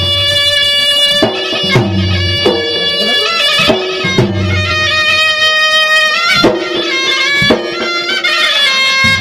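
Traditional Makassar gendang music from Maros: a double-reed shawm (puik-puik) plays a held, stepping melody over irregular drum strokes.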